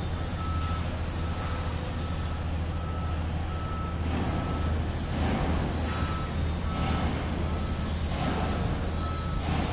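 Heavy diesel machinery running steadily with a low hum, while a reversing alarm beeps about once a second. A few short rushes of noise come in the second half.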